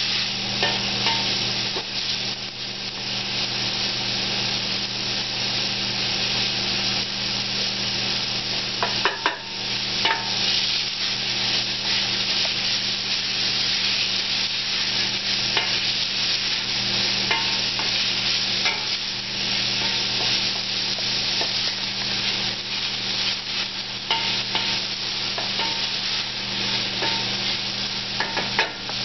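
Chopped garlic and shallots sizzling in hot oil in a stainless steel pot, stirred and scraped with a wooden spoon, as the garlic starts to stick and caramelize. The sizzle is steady over a low steady hum, with a few sharper taps of the spoon about a third of the way through.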